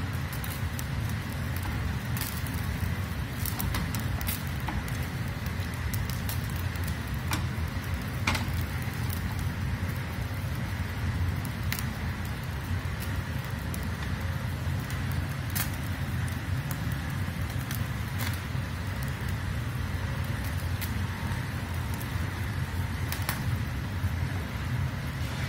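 Steady low rumble and hiss of a gas burner heating a cast-iron tawa, with scattered faint crackles from the rice flatbread cooking on the hot pan.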